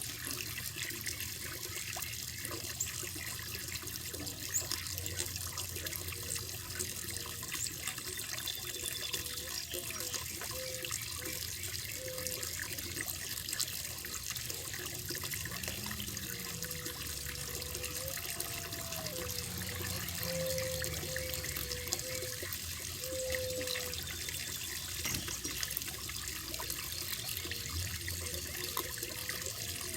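Running water in a koi pond: a steady splashing trickle of water falling into the pond.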